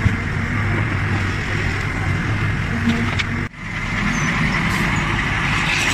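Heavy machinery's diesel engine running steadily, with a sharp break about three and a half seconds in where one recording cuts to another.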